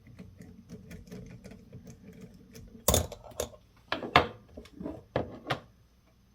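Rapid light metallic clicking, about ten a second, as a fastener on a motorcycle starter motor is quickly backed out. About three seconds in it gives way to several loud metal clanks and knocks as the starter's parts are handled and come apart.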